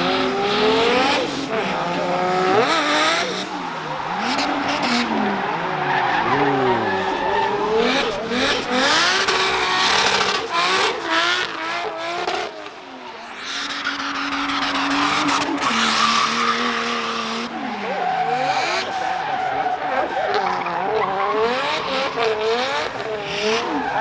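Drift cars' engines revving hard, their pitch swinging up and down again and again, with tyres squealing and skidding. The sound dips briefly about halfway through.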